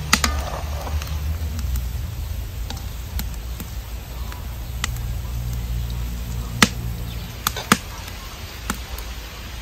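Palmyra-fruit fritters deep-frying in oil in a steel wok over a rocket stove, with a steady low rumble under the frying. A handful of sharp clicks and pops come through it, the loudest about two-thirds of the way in, as a slotted spoon stirs the fritters.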